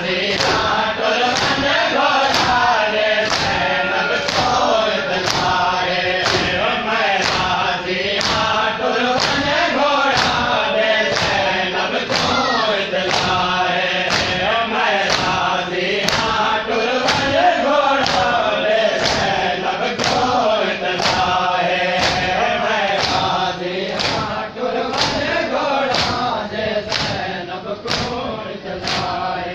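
A crowd of men chanting a noha in unison, with rhythmic chest-beating (matam) slaps landing in time, a little over one stroke a second.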